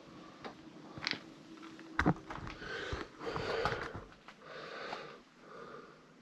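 A few light clicks and a sharp knock about two seconds in, then a man breathing noisily through the nose, several breaths about a second apart.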